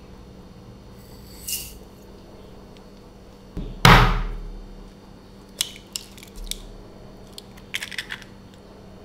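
A raw egg cracked with one sharp knock against a glass mixing bowl about four seconds in, followed by a run of small clicks and crackles as the shell is pulled apart and the egg drops into the milk. A brief soft hiss comes about a second and a half in, as sugar is poured into the milk.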